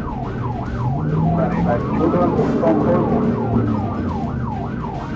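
Police car siren in a fast yelp, about three rising-and-falling sweeps a second, with a slower wailing siren overlapping at times.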